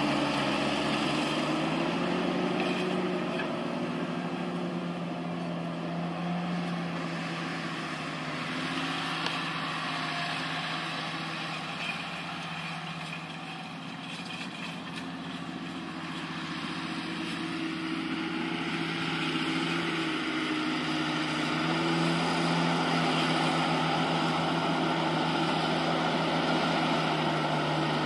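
Diesel engine of a large John Deere tractor running steadily as it pulls a chisel plow. It grows fainter as the tractor moves away until about halfway, then louder again as it comes back toward the listener.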